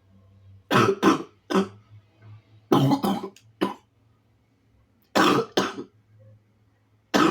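A sick man coughing in bouts of two or three quick coughs, four bouts a second or two apart.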